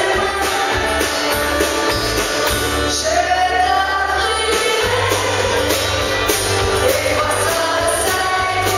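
A woman singing live into a microphone with a band: electric bass and drums keep a steady beat, about two cymbal strokes a second, under her voice.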